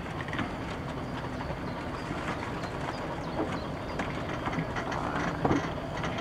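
Railway passenger coaches rolling past, their wheels clicking over the rail joints above a steady rumble.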